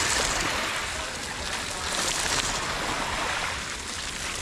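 Cyclocross bike tyres rolling and splashing through a shallow muddy puddle, with surges of spray near the start and again about two seconds in.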